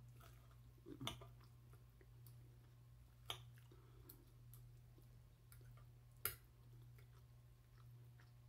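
Knife and fork clicking against a glass dish while cutting a pork chop: three short, sharp clicks, the first about a second in and the last about six seconds in, over a faint low hum.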